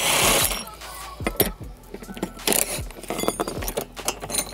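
A cordless impact driver runs briefly on a bolt, then loose steel bolts and connecting straps clink repeatedly against the plates as they are handled.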